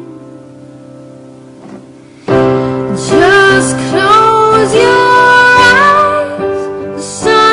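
A song: soft held accompaniment notes fade, then about two seconds in a singing voice comes in loudly with gliding, sustained notes over the accompaniment.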